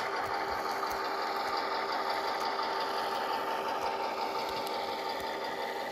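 Diesel locomotive engine sound from a SoundTraxx ECO-PNP 882004 decoder, played through the small speaker of an HO scale Athearn Blue Box model, running steadily as the model rolls along the track, with a few faint clicks.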